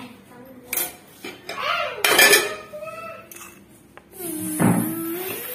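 Stainless steel plates and bowls clattering and clinking as they are handled on a kitchen counter, a few sharp knocks with a brief metallic ring, the loudest about two seconds in.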